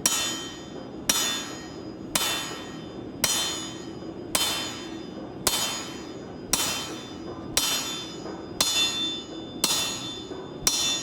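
Steady hand-forging blows about once a second, each strike ringing: an axe swung as a forging hammer onto hot steel on an anvil.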